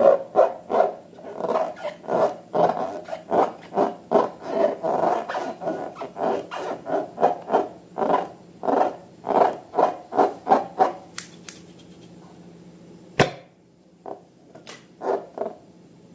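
Slime being squeezed and kneaded by hand: a run of wet squelches, about two or three a second. They stop about 11 seconds in, and a single sharp click follows a couple of seconds later.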